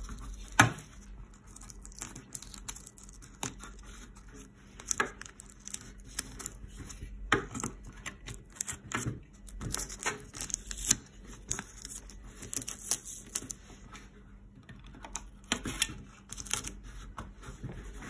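Masking tape being pulled, torn and pressed onto a clear plastic turntable dust cover: irregular crackling and tearing with scattered sharp ticks, the loudest about half a second in.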